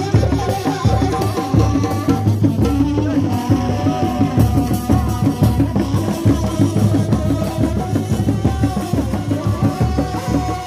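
Traditional Sundanese music: fast, dense hand-drum patterns under a sustained, wavering melody line.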